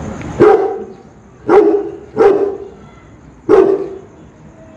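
A large black guard dog barks four times at a gate in deep, loud, single barks with uneven gaps between them.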